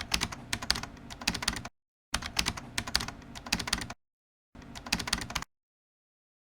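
Rapid computer-keyboard typing, many key clicks a second, in three runs that start and stop abruptly with two short dead-silent gaps between them.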